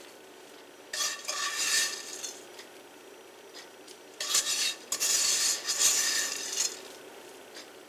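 Silicone spatula scraping buttered cracker crumbs across a nonstick pan and onto a casserole, in two stretches: a short one about a second in and a longer one from about four seconds in.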